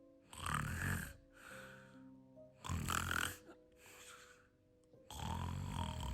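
A person snoring: three heavy snores, each close to a second long and about two and a half seconds apart, with softer sounds between them. Quiet background music with held notes runs underneath.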